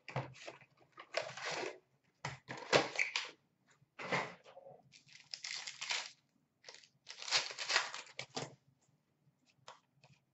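2019-20 Upper Deck Series 1 hockey blaster box being torn open by hand and its foil card pack ripped and crinkled, in a string of short tearing, rustling bursts with brief pauses between them.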